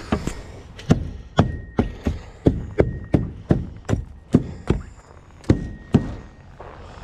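Footsteps: a run of short, sharp steps, about two or three a second, slightly uneven.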